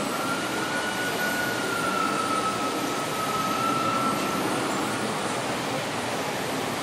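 Steady hiss of a model railway hall, with one high, even tone held for about four and a half seconds from the start, sagging slightly in pitch before it stops.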